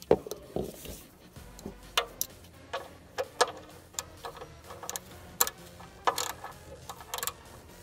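Socket ratchet clicking in short, separate clicks at an uneven pace of one or two a second, as it turns the oil pan drain plug bolt.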